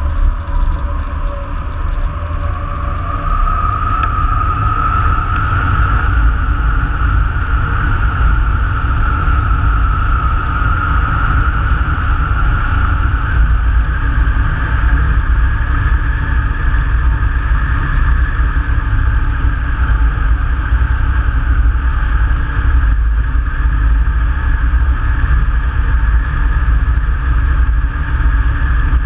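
Wind rushing past a hang glider's wing-mounted camera in flight, a steady rumbling buffet on the microphone. Over it, a thin whistle climbs slowly in pitch over the first several seconds and then holds steady.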